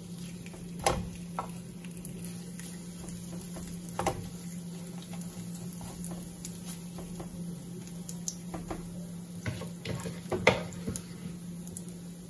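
A metal spoon and a slotted spatula knocking and scraping in a non-stick frying pan as banana fritters (maruya) in batter fry in shallow oil, with a faint sizzle. Scattered sharp knocks, a cluster of them near the end and the loudest about ten seconds in, over a steady low hum.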